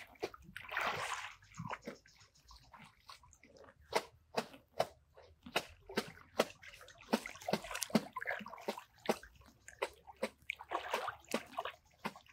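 Water splashing and sloshing as a man wades waist-deep and gathers a cast net under the water, in short irregular splashes. A longer, broader splash about a second in, as the thrown net hits the water.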